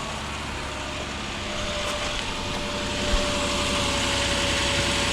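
Nissan Pathfinder engine idling steadily on fresh oil during a leak check after an oil change. It gets slightly louder about a second and a half in, when a steady hum comes in, and there is a single low thump midway.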